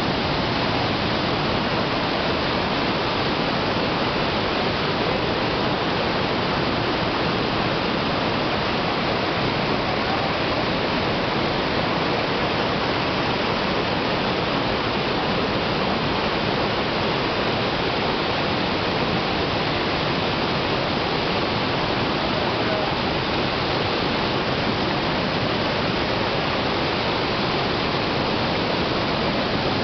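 Steady rush of white water cascading over boulders in a rocky stream.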